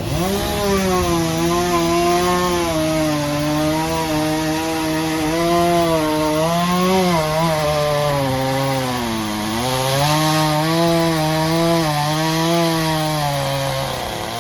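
Chainsaw running near full throttle while cutting wood, its engine pitch sagging and recovering as the chain bites, with two deeper dips about seven and nine and a half seconds in before it stops near the end.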